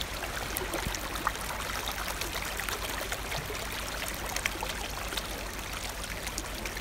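Water trickling down a wet rock face and dripping, a steady rush with many small splashes of falling drops.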